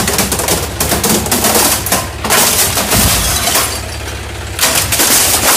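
A tractor's steel cage wheel rolling over a CRT television, its plastic casing cracking and breaking apart in crunching bursts, loudest about two seconds in and again near the end, with a low thump about three seconds in. The tractor's engine runs steadily underneath.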